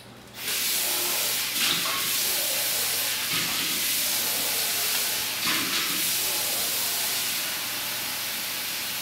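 Water running steadily from a tap, starting with a rush about half a second in and easing slightly near the end.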